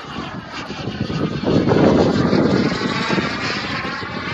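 Radio-controlled model airplane flying past overhead. Its engine noise swells to a peak about two seconds in, then fades as it moves away.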